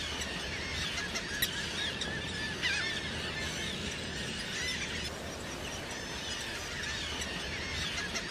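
Terns in a nesting colony giving short, shrill, overlapping calls again and again over a steady background rush.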